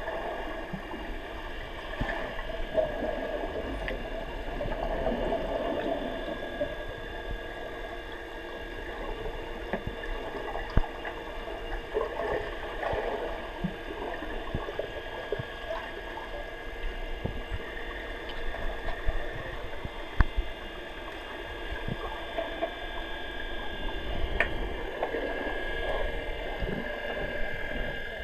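Swimming pool heard from underwater: a steady muffled hum with several held tones, soft swishes of water as swimmers move, and scattered short clicks and knocks.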